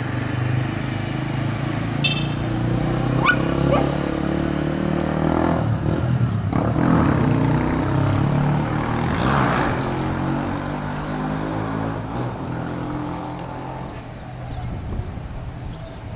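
A motor vehicle's engine running steadily, easing off in the last few seconds, with a few short high chirps about two to four seconds in.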